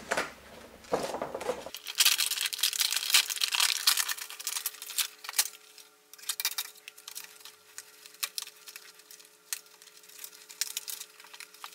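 Cardboard and plastic toy packaging rustling and crinkling as a boxed doll is pulled out of its box, densest for a few seconds about two seconds in, then giving way to scattered small clicks and taps of handling.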